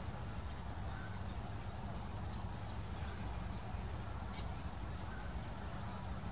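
Faint, short high bird chirps and tweets, scattered mostly between about two and six seconds in, over a steady low background rumble.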